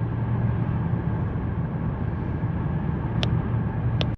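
Steady low hum of a Lexus LS430 heard from inside the cabin, the engine and road noise of the car under way. Two short sharp clicks come near the end.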